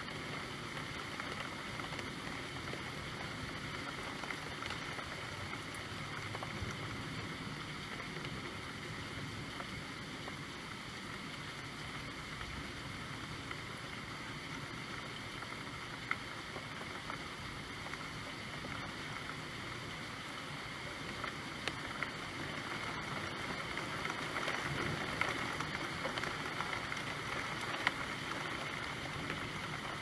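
Steady rain falling, an even hiss with scattered sharper drop ticks, growing a little louder about two-thirds of the way through.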